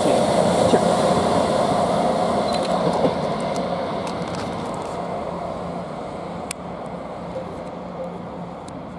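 Three coupled Class 159 diesel multiple units pulling out, their underfloor diesel engines and wheels on the rails fading steadily as the rear of the train moves away. A few faint clicks come through near the end as it draws off.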